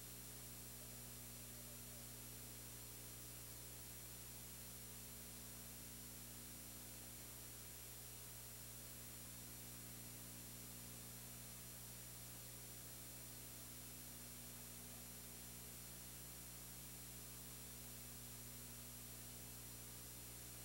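Near silence: a steady electrical mains hum with its overtones under a faint even hiss, unchanging throughout.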